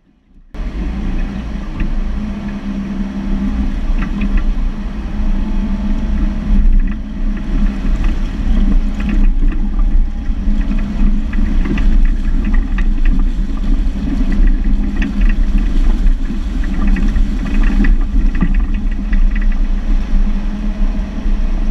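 Jeep engine running through a creek crossing, a loud, steady low rumble that starts abruptly about half a second in.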